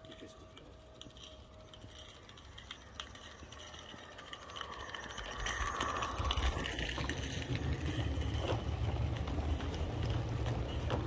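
A 16 mm-scale garden railway train of coaches running past close by, its wheels clicking and rattling over the track. It gets louder about five seconds in as the coaches come by, with a low rumble underneath.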